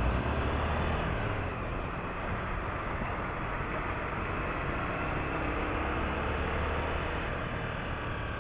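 Motorcycle engine running while riding along a street, mixed with steady wind rush on the microphone; the low engine rumble is strongest about the first second and again toward the end.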